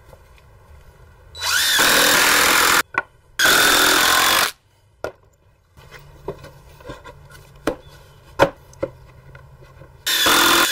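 A cordless power driver runs in three bursts, each about a second or two long, each rising quickly in pitch as it spins up, driving screws into wooden blocks. Light knocks of wood being handled fall between the bursts.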